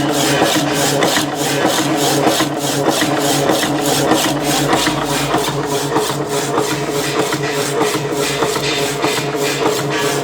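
Workshop machinery running with a steady rhythmic rasp, about four strokes a second, over a steady hum.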